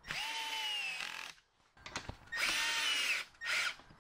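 Milwaukee 12-volt cordless drill driver driving a bolt through a tent-frame fitting: two runs of about a second each, the motor's whine dipping slightly in pitch toward the end of each run, then a brief blip of the trigger.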